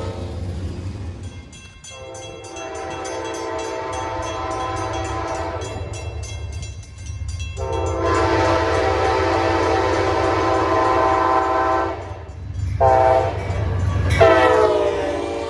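Locomotive multi-chime air horn sounding the grade-crossing signal: two long blasts, a short one, then another long one starting near the end, over the low rumble of the passing train.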